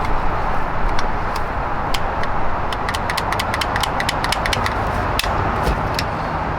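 A run of sharp, irregular clicks, thickest around the middle, from the Jaguar XJ6's console door-lock button being pressed over and over while the locks fail to respond. A steady rumble and hiss of background noise runs under the clicks.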